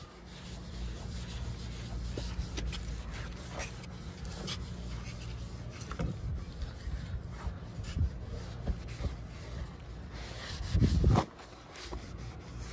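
Microfiber towel rubbing over a car's painted plastic bumper, buffing off wax by hand: a steady low scrubbing with small scattered clicks. A short muffled burst of noise comes near the end.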